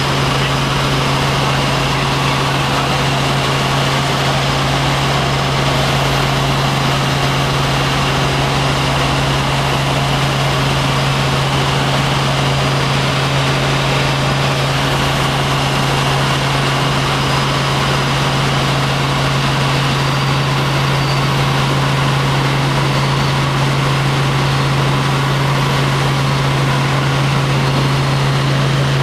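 Helicopter running steadily: a constant loud drone, a deep steady hum under an even rushing noise.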